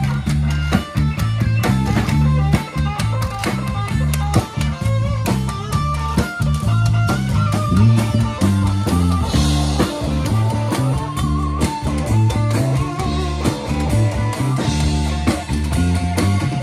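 Live rock band playing an instrumental passage: electric guitar and bass guitar over a drum kit, with frequent cymbal and drum hits.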